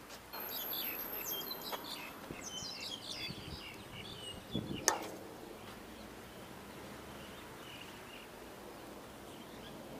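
Small birds chirping in quick, busy calls for the first four seconds or so, then only now and then. A single sharp click about five seconds in is the loudest sound.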